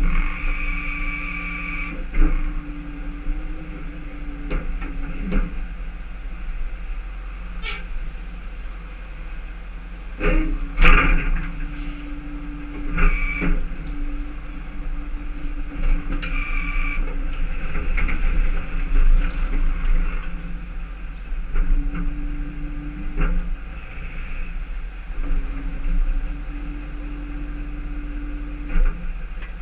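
Tow truck engine running steadily as the truck manoeuvres, with a few short high squeals and scattered knocks and clanks.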